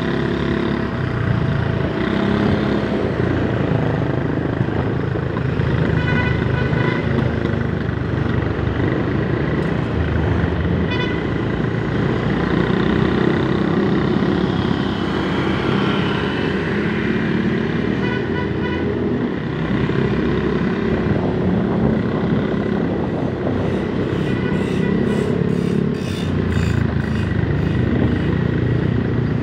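Motor scooter riding through city traffic: steady engine and road noise, with short vehicle-horn toots now and then.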